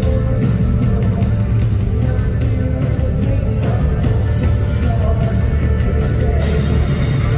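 A rock band playing live at full volume, with a dense, heavy low end and repeated hits in the highs throughout.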